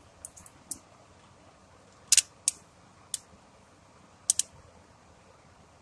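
Sharp, short clicks from the cap of an olive oil bottle being twisted and worked open by hand, about eight in irregular groups, the loudest a little over two seconds in.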